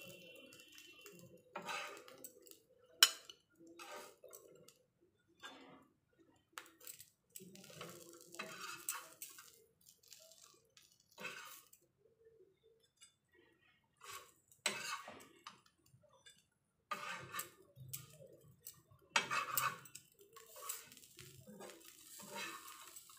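Metal spatula scraping and clinking on a flat griddle as fried cauliflower fritters are lifted off, in irregular bursts with a sharp clink about three seconds in.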